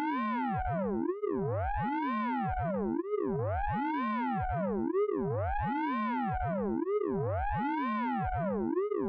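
Synthesized radar pulse-train sound effect from the Orange Vocoder plugin: a continuous electronic tone with many overtones, gliding up and down in pitch in a cycle that repeats about every two seconds.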